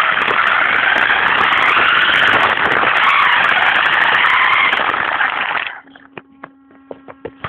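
Brushless electric motor of a 1:10 RC car driving, heard from a camera mounted on the car. A whine rises and falls in pitch with speed over loud tyre and drivetrain rush. The noise stops abruptly a little under six seconds in, leaving faint steady tones and scattered clicks.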